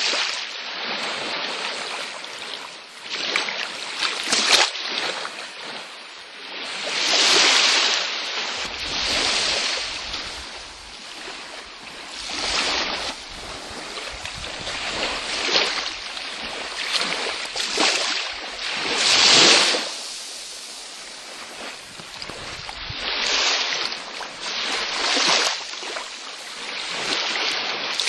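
Small waves breaking and washing ashore on a beach, each wash of surf swelling and fading every few seconds, loudest about seven and nineteen seconds in.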